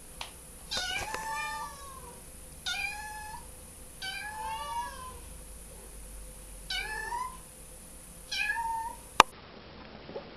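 Young ginger kitten meowing repeatedly: about six short, high meows, a second or two apart, each bending up and down in pitch. A single sharp click near the end.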